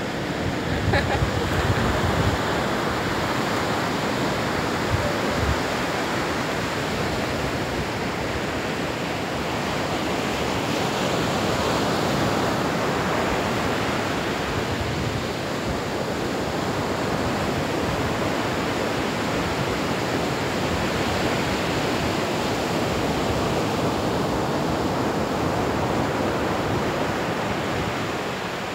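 Ocean surf breaking and washing up a sand beach: a steady rush that swells and eases slowly. A few low thumps come in the first few seconds.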